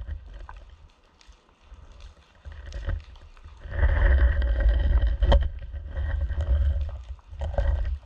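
Muffled underwater rumble of water moving around a GoPro in its housing on the seabed, coming in surges, with scattered sharp knocks; the loudest surge comes about four seconds in, with a knock a little after five seconds.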